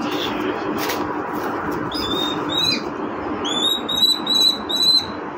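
Common kestrel chicks' begging calls at feeding time: two high calls about two seconds in, then a quick series of five short, clipped calls. A steady background hum runs underneath.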